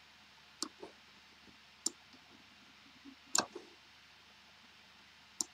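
Computer mouse clicking: about six short, sharp clicks at uneven intervals, the loudest a little past the middle.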